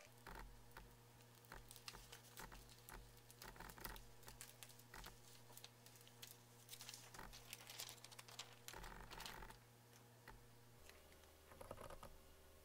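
Near silence with a faint low hum and scattered faint, irregular light ticks and taps.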